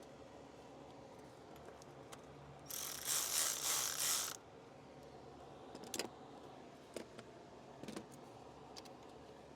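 Ratcheting tool running a bolt in: a fast, dense ratchet rattle lasting about a second and a half, followed by three or four single clicks of metal tools.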